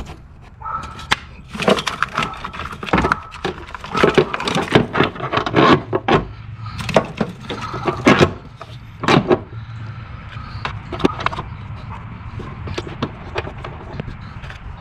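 Repeated clicks, knocks and rattles as a replacement engine computer (PCM) is handled and pushed into its black mounting base, dense for the first ten seconds or so, then fewer and fainter.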